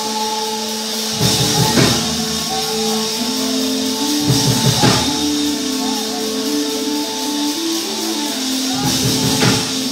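Live church praise music: held keyboard notes over a bass line that steps up and down, with drum and cymbal hits about every three to four seconds.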